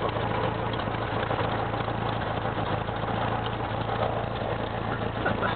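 Cessna 172's piston engine and propeller running steadily, heard from inside the cabin as a constant low hum under a wash of noise.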